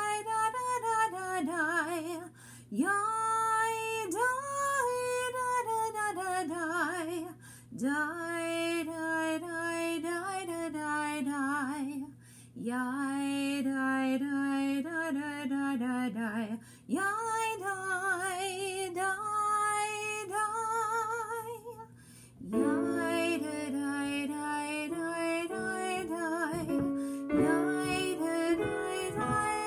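A woman's solo voice sings Hebrew High Holiday nusach, the liturgical chant mode, a cappella with vibrato, in phrases broken by short breaths. About 22 seconds in, a piano comes in playing chords.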